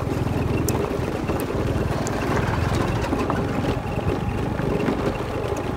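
Motorbike engine running steadily as it rides along a gravel road, with tyre noise and wind buffeting the microphone.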